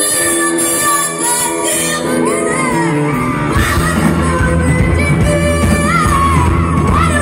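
Live rock band playing loud in a large hall, a woman singing into a microphone over sustained guitar chords, with shouts from the crowd. About three and a half seconds in, the drums and bass come in hard and the music gets fuller.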